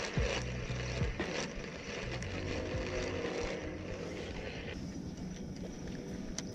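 Small boat's motor running steadily at low speed, a low hum that is strongest in the first couple of seconds and then eases off, with a few light knocks.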